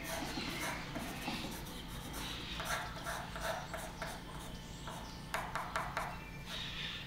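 Pencil scratching on paper in short strokes as someone writes or sketches, with a quick run of sharp clicks about five and a half seconds in.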